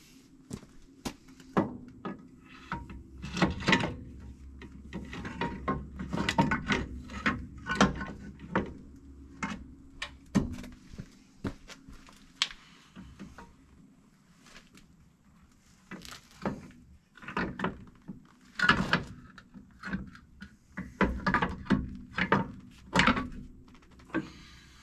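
Irregular metal clanks and knocks as new drum-brake shoes are handled and fitted onto a truck's axle-end brake assembly.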